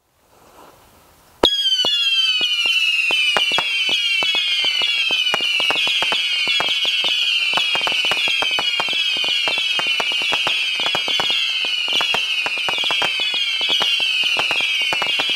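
A Saturn missile battery firing: after a second and a half of faint hiss, dozens of small whistling missiles launch in rapid, continuous succession. Their falling whistles overlap, with a constant crackle of sharp pops.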